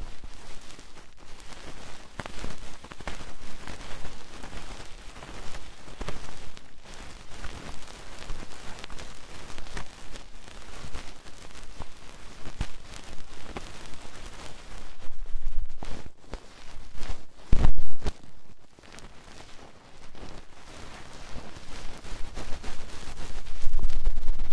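ASMR triggers played right on the microphone: fast, dense tapping and scratching, with one loud thump a little past the middle and a low rubbing rumble that swells near the end.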